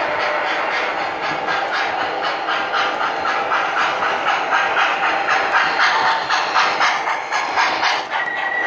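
O-gauge model steam train, locomotive and coal hopper cars, running on three-rail track, with a steady rhythmic beat about four times a second. A steady high tone starts near the end.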